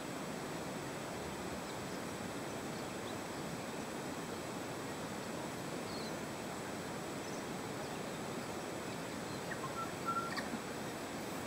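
Steady outdoor background noise with no distinct source, and a few faint short chirps and small clicks about ten seconds in.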